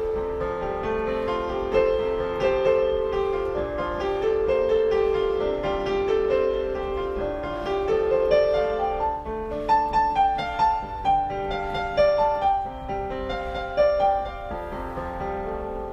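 Intro music: a piano piece playing a melody over steady chords, with sharper, accented notes in the second half.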